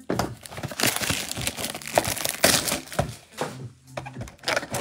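Cardboard trading-card mega box being handled and opened by gloved hands: irregular crinkling and tearing of the packaging.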